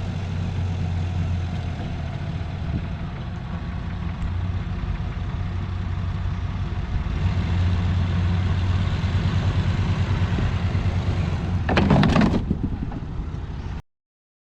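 A 1987 Ford Thunderbird's engine running at low speed as the car is eased toward drive-on ramps. The engine grows a little louder about halfway through. Near the end there is a short, loud clatter, and then the sound cuts off abruptly.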